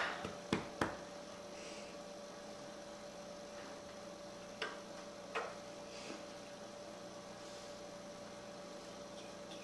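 Steady electrical hum, with two short sharp clicks about half a second in and two softer ones around the fifth second.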